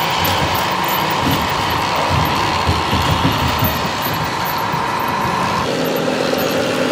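Radio-controlled scale model JCB Fastrac tractor towing a loaded low-loader trailer, with a steady high whine over an uneven low rumble. About three-quarters through, the whine stops and a lower steady hum takes over.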